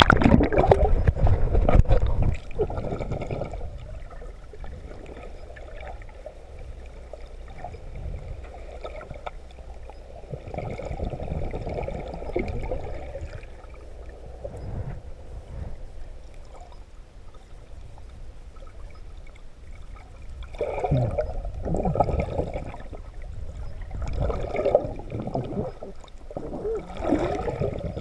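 Muffled underwater sound of shallow seawater moving against a submerged camera: loud splashing for the first two seconds as it goes under, then a low rumbling slosh and gurgle, swelling again in a few bouts near the end.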